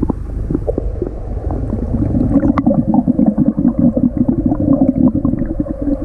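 A swimmer blowing bubbles underwater while exhaling. A bubbling gurgle grows loud about two seconds in, over a steady low water rumble.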